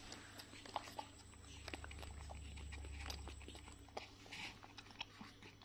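Faint scattered clicks and short rustles of pet monkeys handling and sucking on small boxed-milk cartons, with a low rumble that swells about halfway through.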